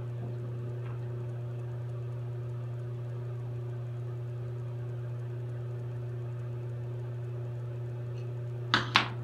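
Steady low hum in a glassblowing shop with the bench torch burning, unchanging throughout. Two brief sharp sounds come close together near the end.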